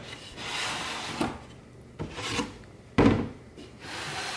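A hand rubbing and sliding along the wooden slats of a bench top, with several sharp knocks, the loudest about three seconds in.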